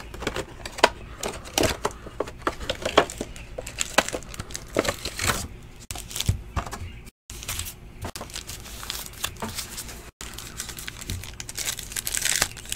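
Trading cards and plastic card holders being handled, with scattered light clicks and taps, then the crinkling and tearing of a card pack's wrapper being opened near the end. The sound cuts out completely for a moment twice.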